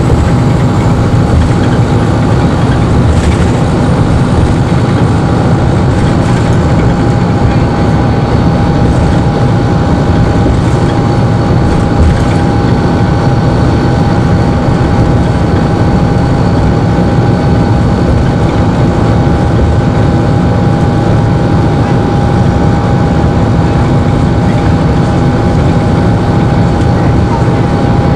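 Detroit Diesel Series 50 inline-four diesel engine of a NovaBus RTS-06 transit bus, heard from inside the bus. It runs steadily at an unchanging pitch, with a steady high whine over the heavy rumble.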